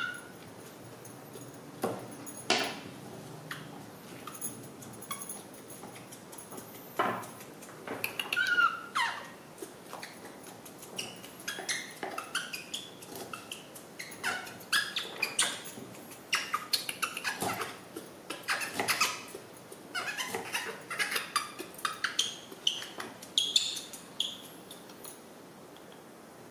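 Baby monkey giving short high squeaks and chirps, over a kitchen knife tapping and chopping long beans on a wooden chopping board in quick, irregular strokes.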